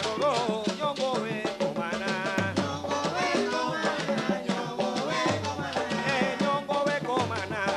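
Live Afro-Cuban jazz band playing: winding melodic lines over hand drums and busy percussion, with a deep low note coming back about every two and a half seconds.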